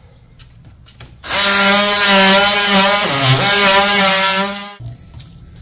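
DeWalt oscillating multi-tool running as it cuts into pink foam insulation board, a steady buzzing whine over a hiss. It starts about a second in, dips briefly in pitch partway through, and stops sharply after about three and a half seconds.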